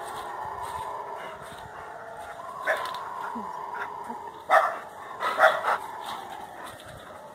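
Howler monkeys (guaribas) calling from the forest as a steady, distant drone. Three or four louder short barks stand out around the middle.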